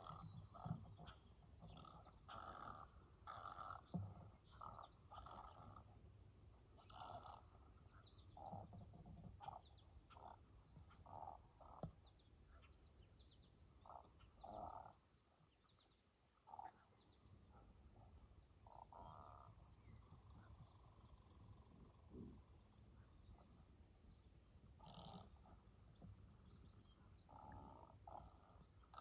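Faint harsh croaks and squawks from a flock of great egrets and great blue herons, short calls coming irregularly, over a steady high chirring of crickets and other insects.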